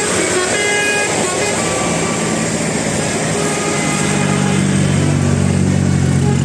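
Bus telolet horn of the basuri type playing a quick run of melodic notes in the first second or two, over steady traffic noise. About four seconds in, a vehicle engine's low running sound grows louder.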